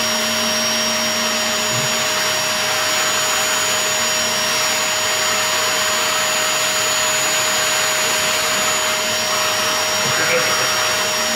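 Vacuum cleaner running steadily, its hose nozzle sucking loose packing flakes out of a cardboard box.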